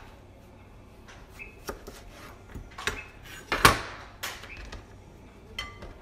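Kitchen knife knocking on a plastic cutting board as cucumber is cut and the strips handled. The loudest is one sharp clack about three and a half seconds in, as the knife is set down on the board.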